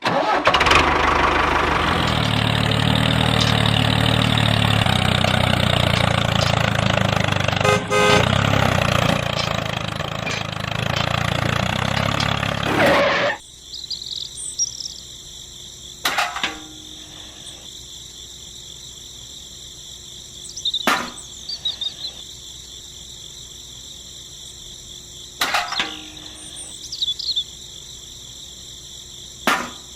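A loud mechanical running sound with a low hum for about thirteen seconds, cutting off suddenly. Then crickets chirring steadily, with a few sharp clicks.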